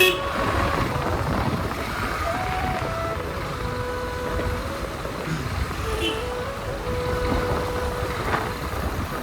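Pulsar AS 150 single-cylinder motorcycle being ridden through traffic, with engine and wind rumble on a phone microphone. Several held tones come and go over it, and there is a sharp knock at the very start.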